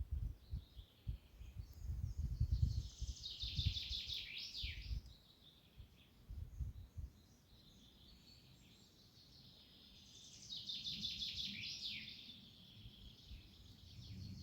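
A songbird sings twice, each song a quick run of repeated high notes ending in a falling slur. A low, gusty rumble comes and goes through the first half and is louder than the birdsong.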